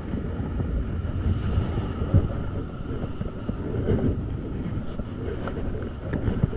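Wind buffeting a body-worn camera's microphone in a low, uneven rumble, with surf washing up behind it. A short thump about two seconds in.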